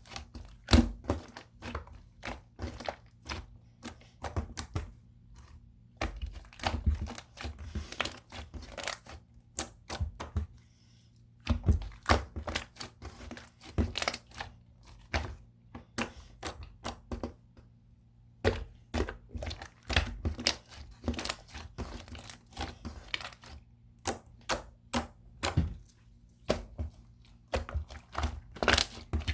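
Pudding- or cheese-like coloured slime being squeezed and pressed by hand: an irregular string of sticky clicks and crackling pops, pausing briefly now and then.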